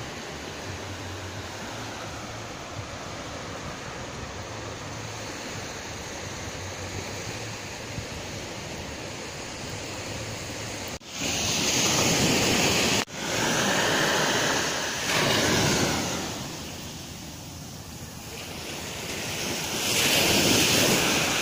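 Small surf washing onto a sandy beach, with wind on the microphone. It is a steady hiss for about the first half, then louder washes that swell and fade several times.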